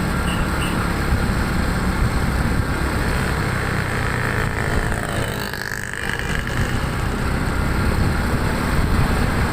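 Steady vehicle engine and road noise. It briefly dips and changes about five seconds in, then carries on.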